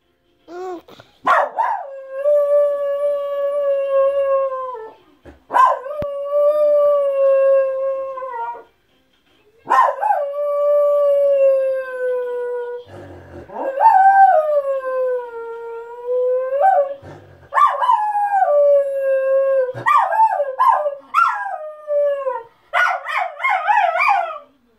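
Miniature schnauzer howling: a run of about five long howls of three seconds or so each, each starting sharply and holding a steady pitch that dips at the end, then quicker, broken, wavering calls near the end.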